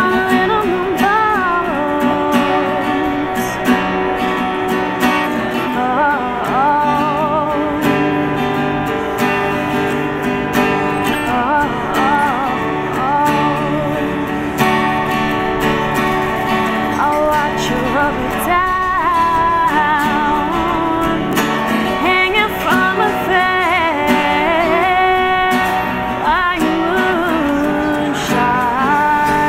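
A woman singing a folk-pop song with vibrato, accompanied by her own strummed acoustic guitar.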